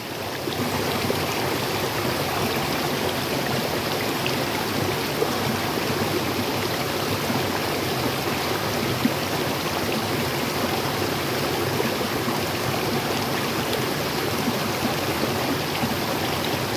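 River water running over rocks, a steady, even rush of flowing water.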